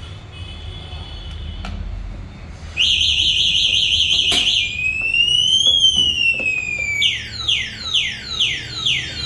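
Electric scooter's anti-theft alarm going off after tampering. After a short lull it starts again about three seconds in with a fast warbling tone, then one slow rising-and-falling siren wail, then a run of quick falling whoops about two a second.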